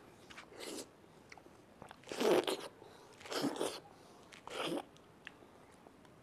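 A person biting and chewing ripe papaya flesh off the skin: four short, wet mouth sounds about a second apart, with small clicks between.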